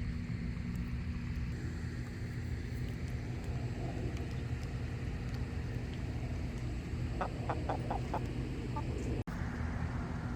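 A hen gives five short, quick clucks about seven seconds in, at roughly four a second, over a steady low rumble.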